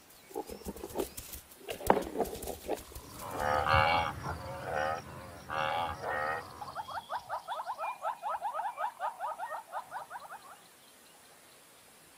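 Cape buffalo herd: a few sharp knocks, as of horns clashing between two sparring bulls, then several deep lowing calls. A fast run of repeated chirping calls follows for about four seconds and stops well before the end.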